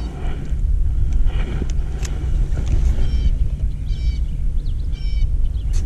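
A steady low rumble runs throughout, with a bird calling from about halfway in: short, nasal, evenly pitched calls about once a second. A few light clicks are heard here and there.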